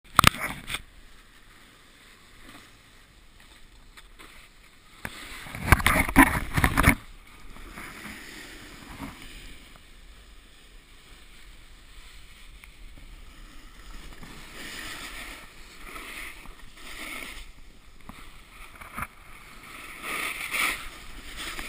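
Snowboard sliding and scraping over snow on a downhill run, a steady hiss that swells and fades as the board carves. There are handling clicks right at the start and a loud stretch of knocks and rubbing about six seconds in.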